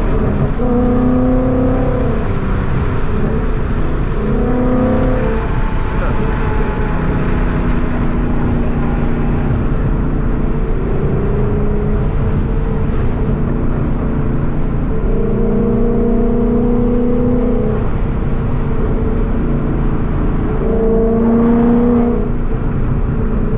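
Ford Mustang's engine and exhaust running on E85 at a steady cruise, heard from inside the cabin over road noise, with a steady droning tone that comes and goes for a second or two at a time.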